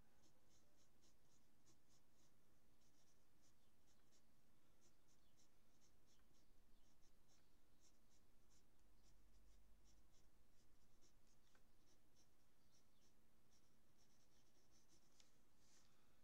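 Pencil scratching on paper in many short, quick sketching strokes, faint.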